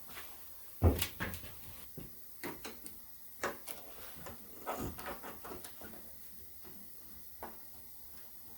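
Knocks, clicks and rattles of parts and tools being handled during hands-on work on a motorcycle. The loudest is a sharp knock about a second in, followed by a run of lighter clicks and one more near the end.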